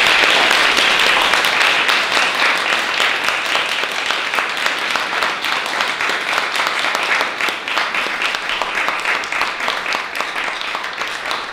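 Small audience applauding, a dense patter of hand claps that is loudest at first and slowly thins out.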